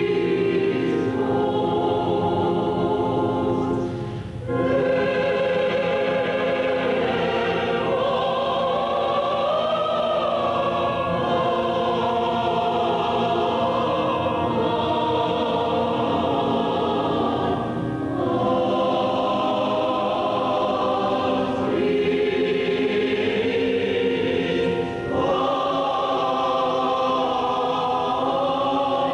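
A choir singing slow, sustained phrases, with short breaths between phrases a few times.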